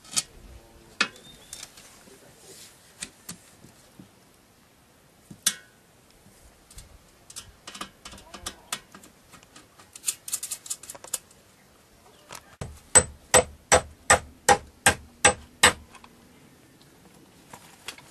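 A hammer striking in a steady run of about ten sharp blows at roughly three a second, the loudest part, in the second half. Before it come scattered knocks and clicks of handling tools and materials.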